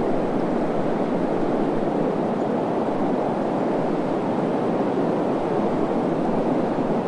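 Recorded wind ambience used as soothing white noise: an even, deep rushing hiss that holds steady with no gusts or breaks.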